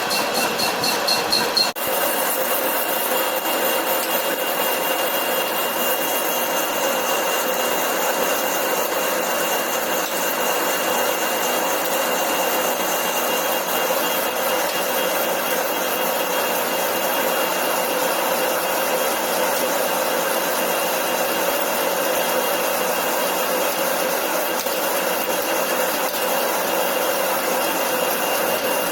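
Lathe running with a cutting tool turning a workpiece: a steady rasping noise with a faint steady whine, after an abrupt change about two seconds in.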